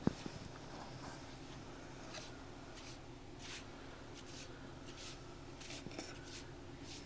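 Soft, short scratchy strokes repeating irregularly, with one sharp tap right at the start, over a faint steady low hum.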